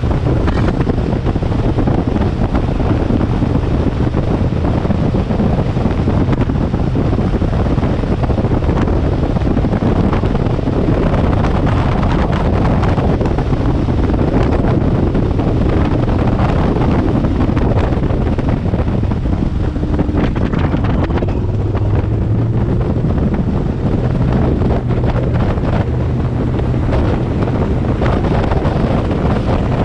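Wind rushing over the microphone of a bass boat running at about 50 mph, over the steady drone of its Evinrude E-TEC 250 outboard and the hull on the water. The engine note comes through more clearly in the second half as the boat slows a little.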